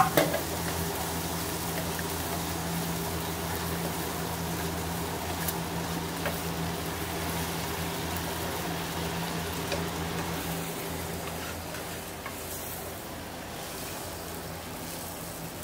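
Sauce with bean sprouts and green onion sizzling in a wok over a gas flame while a steel ladle stirs it, with a few light clicks of the ladle against the wok, over a steady low hum.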